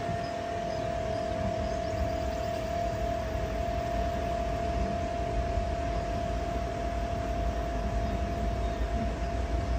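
A large tubular wind chime ringing: one long note, struck just before, holds on steadily, over a low steady rumble.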